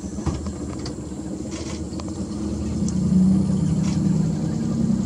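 Outboard motor of a small tour boat running at low speed, a steady low hum that grows louder about three seconds in, with a few faint clicks.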